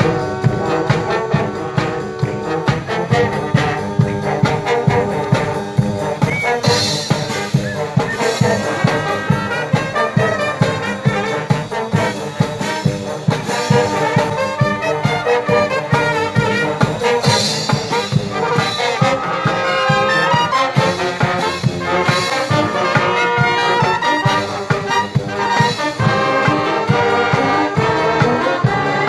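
Marching band playing: brass (trumpets and trombones) carrying the melody over a steady beat of marching drums, with cymbal crashes about seven seconds in and again near seventeen seconds.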